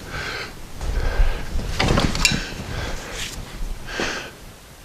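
Irregular clunks, scrapes and clicks of tools and parts being handled, a sharp click about two seconds in.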